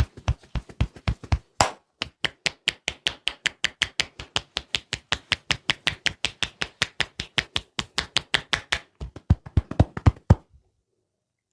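Rapid, even hand strikes of a percussive head massage, about seven a second, with a short break about two seconds in. The strikes grow louder near the end and stop suddenly.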